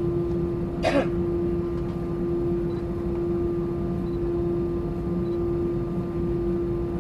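Steady cabin drone of an Airbus A320-200 taxiing, with one even hum over a low rumble. About a second in, a person briefly clears their throat.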